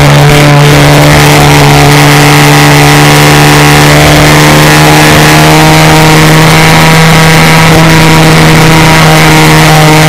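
Seagull Ultimate model aerobatic plane's engine running at a steady high throttle, heard loud and close from on board the model, one unchanging drone.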